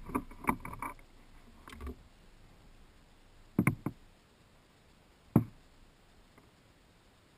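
A short rattle of light clicks, then two separate knocks on a canoe's hull, about two seconds apart.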